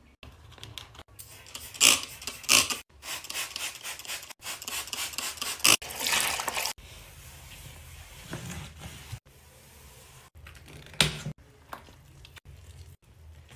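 Short cut-together bathroom-sink cleaning sounds: rubber cleaning gloves rubbing and tap water running over a gloved hand into a ceramic sink. A few sharp knocks and clicks stand out, the loudest about two seconds in and near eleven seconds.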